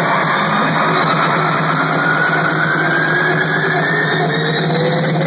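Live electronic dance music played loud through a concert sound system: a build-up with a steady buzzing synth tone under slowly rising pitch sweeps.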